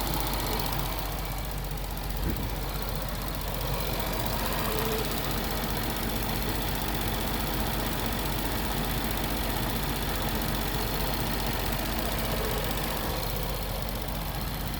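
Range Rover engine idling steadily, with one short knock about two seconds in.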